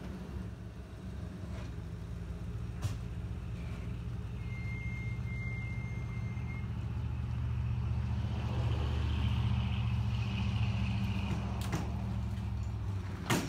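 Pickup truck engine running steadily under load as it pulls on a rope tied into a cottonwood tree, growing louder about eight seconds in and easing off near the end. A sharp click comes just before the end.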